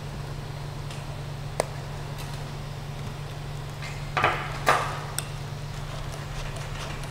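Steady low hum of a Creality CR-6 SE 3D printer running while its nozzle heats up. Over it come one sharp click, then two short, louder scraping noises a little past four seconds, as the filament end is handled and fed toward the extruder.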